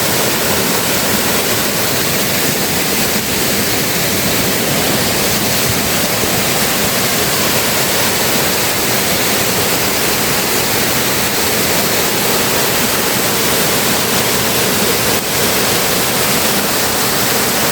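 Waterfall close up: a steady rush of falling water, loud and unbroken.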